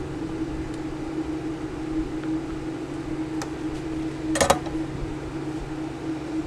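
Steady mechanical hum with a constant low tone, like a small fan running. About four and a half seconds in comes a quick cluster of sharp clicks, the loudest sound, with one fainter click a second earlier.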